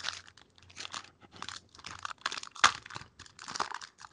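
Foil wrapper of an Upper Deck Ice hockey card pack crinkling and crackling as it is handled and opened by hand, in irregular crackles with one sharper, louder crackle a little past the middle.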